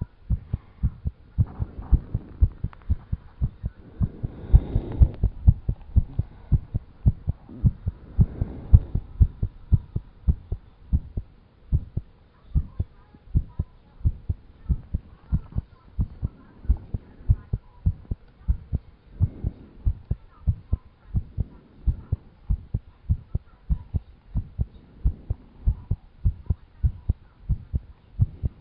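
A person's heartbeat, a regular run of low thumps about twice a second. The heart is beating fast after exercise.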